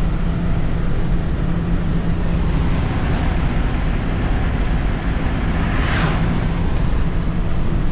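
Inside the cab of a 2017 Ford F-550, its 6.7 L Power Stroke V8 turbo-diesel cruising while towing a loaded gooseneck trailer, with road and tyre noise: a steady low drone. About six seconds in, a brief rush of noise swells and fades.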